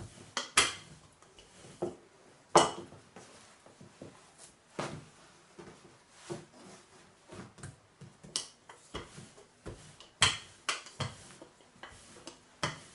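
Wooden rolling pin working a sheet of layered dough on a countertop, with irregular sharp knocks and clacks as the pin and hands strike the counter, the two loudest in the first three seconds.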